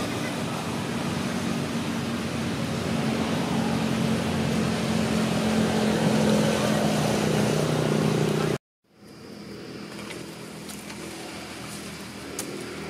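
A motor vehicle's engine running nearby, with a low hum that slowly grows louder; it cuts off suddenly about eight and a half seconds in, leaving quieter outdoor background with a few faint clicks.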